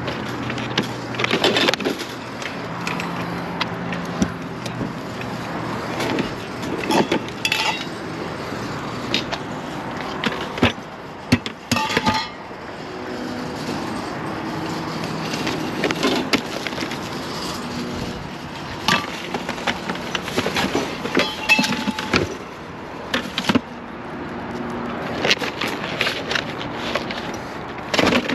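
Wire shopping cart rolling over asphalt, its wheels rumbling and the loaded basket rattling, with repeated knocks and clatters as the goods shift. Near the end, items are handled and set into a car's trunk.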